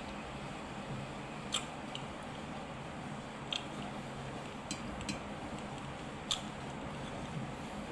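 Eating noises: a few short, sharp wet clicks of chewing and mouth smacks, over a steady background hum.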